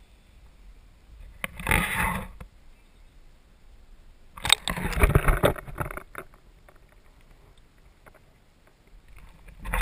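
Water splashing and sloshing around a camera dipped into a lake, in two bursts, one about two seconds in and a longer one from about four and a half to six seconds, as the camera goes under the surface. Between and after the bursts there is only a low, quieter hush.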